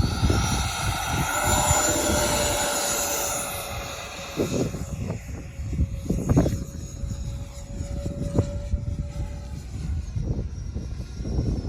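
Twin 70 mm electric ducted fans of an RC SU-57 model jet whining in flight, loud for the first few seconds and then fading as the jet moves away. Wind buffets the microphone throughout, with a few thumps.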